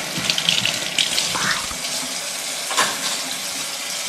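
Kitchen tap running steadily into a sink while dishes are washed, with a couple of short clinks.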